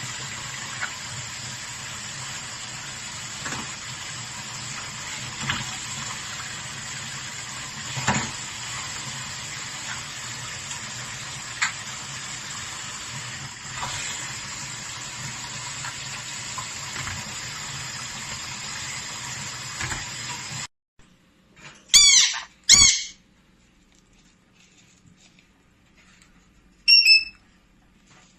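Steady rushing noise like running water, with a few faint short bird calls over it, cuts off abruptly. Then come two loud, harsh pyrrhura conure squawks in quick succession, and near the end a short whistled call.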